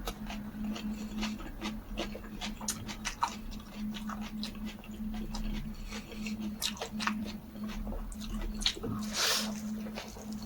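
Close-up chewing and lip-smacking of a person eating a rolled pancake with cured pork: many quick wet clicks and smacks, with a few louder bites about nine seconds in, over a faint low hum.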